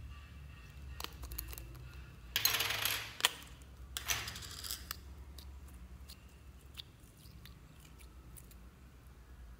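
Lemon-shaped plastic slime container being opened by hand: small plastic clicks, then two brief scraping rattles about two and a half and four seconds in as the lid comes off, and faint clicks after.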